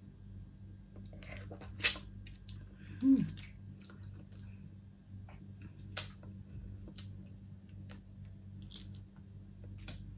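Close-miked eating of seafood: chewing, with scattered sharp clicks and crackles from the shellfish, the loudest about two and six seconds in. A brief hummed vocal sound about three seconds in.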